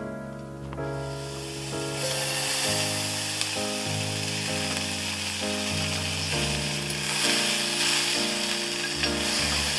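Food sizzling in hot oil in an enamel saucepan, starting about two seconds in as it goes into the pan and going on steadily while it is stirred with chopsticks. Background music plays throughout.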